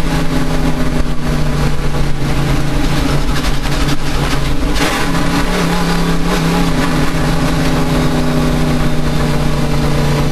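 Engine of a racing vehicle running hard, its pitch dipping briefly a little before halfway and then climbing back. The engine has a misfire.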